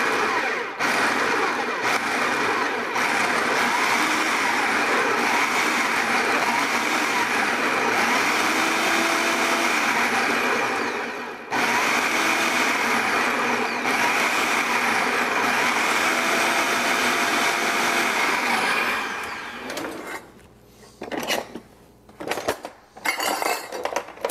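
Electric food processor running, its blade chopping mango chunks and habanero peppers down into a puree; a steady whirr that cuts out for a moment near the middle, then stops a few seconds before the end. After it stops come a few knocks and clicks.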